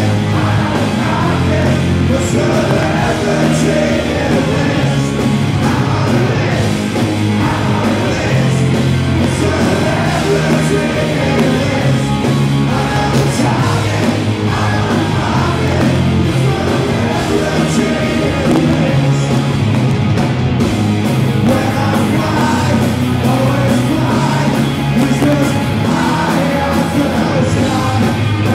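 Live rock band playing loud, with a male singer singing into a microphone over bass, guitar and keyboards.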